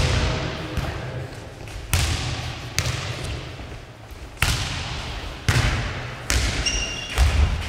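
A nohejbal ball, a football, is kicked back and forth over the net and bounces on the wooden sports-hall floor: about six or seven dull thuds roughly a second apart, each echoing in the big hall. There is a short squeak near the end.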